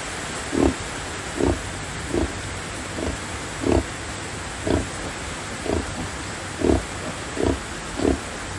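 A sow grunting rhythmically, short low grunts about once a second, as she nurses her piglets; this steady grunting goes with milk let-down. A steady hiss of heavy rain runs underneath.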